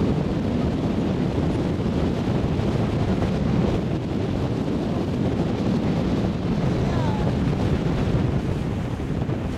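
Steady wind buffeting the microphone aboard a moving boat, a low rumble mixed with the rush of water.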